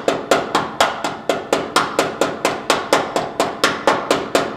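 Body hammer tapping steadily on the sheet-steel seam between the door and rocker panel of a 1940 Plymouth, about three sharp, ringing metal strikes a second, beating the metal into shape at the seam.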